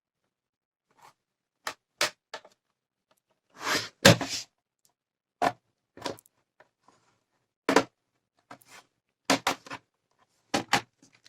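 Plastic snap-clips of a Dell Inspiron 3000 laptop's base cover popping loose as a plastic opening tool is worked around the seam: a series of sharp clicks and snaps at irregular intervals, with a brief scrape of the tool about four seconds in.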